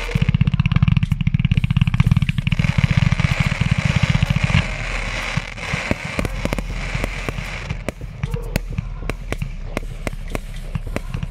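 Fireworks: a fast run of low thuds for about four and a half seconds, then scattered sharp crackles.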